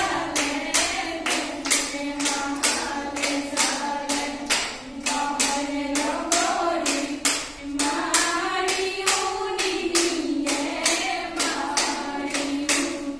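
Group of women singing a Jeng Bihu song in unison over a quick, steady beat of sharp claps, about four a second.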